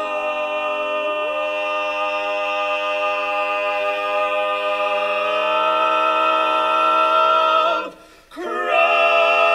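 Barbershop quartet singing a cappella in close four-part harmony, holding one long sustained chord while one voice slides up to a new note about a second in. The chord swells louder, breaks off briefly about eight seconds in, and a new chord starts.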